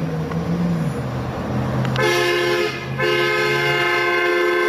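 A Hummer H2's horn sounds twice over a low engine hum: a short blast about two seconds in, then a long steady blast from about three seconds in.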